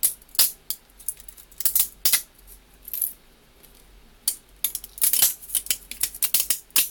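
3D-printed plastic support material being snapped and pulled off a printed part: irregular sharp clicks and crackles, coming thicker in the second half.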